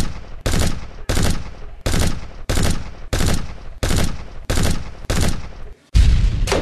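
Pistol gunshots fired one after another, about every two-thirds of a second, each with a short echoing tail, then a louder, longer blast near the end.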